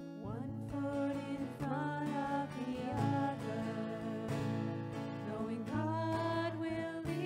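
Small worship band performing a song: acoustic guitars strummed while voices sing. The voices come in just after the start over the guitar chords.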